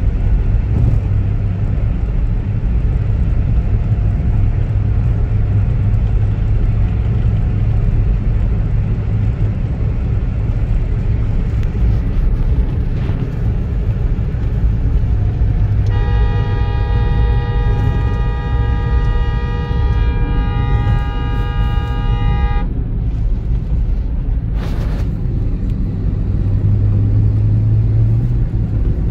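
Steady low rumble of road and engine noise inside a moving car's cabin. A little past halfway, a vehicle horn sounds continuously for about six seconds.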